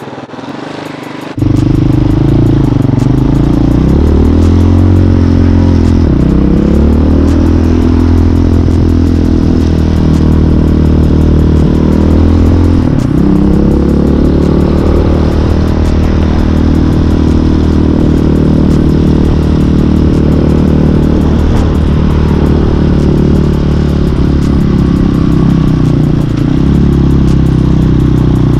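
Hawk 250 dirt bike's single-cylinder engine running while the bike is ridden along a street. The engine comes in loud about a second in, and its pitch rises and falls as the bike accelerates and changes speed.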